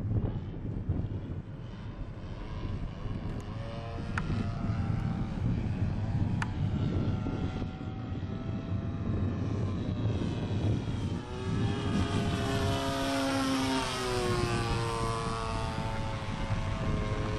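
Engine and propeller of a radio-controlled Yak 54 model airplane droning in flight, the pitch sliding up and then down as it maneuvers, most strongly in the second half. Wind noise on the microphone rumbles underneath.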